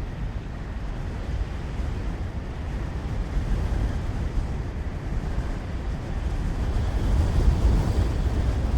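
Strong wind blowing in a steady, deep rush that swells a little near the end.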